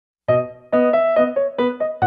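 Intro music: a keyboard plays a quick melody of single struck notes that ring and fade, starting about a quarter second in after a moment of silence.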